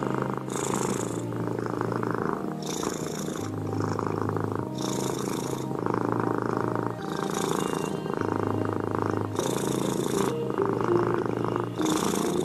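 Domestic cat purring steadily into a small microphone close to its face, the purr changing with each breath in and out about every two seconds.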